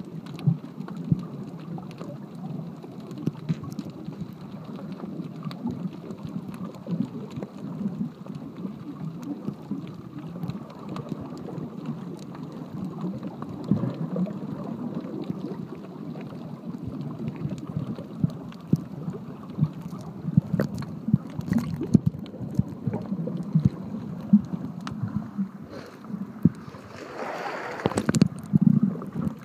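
Muffled underwater noise from a submerged camera: a low, dull rush of moving water with scattered clicks and pops. Near the end the sound turns brighter and splashy as the camera breaks the sea surface.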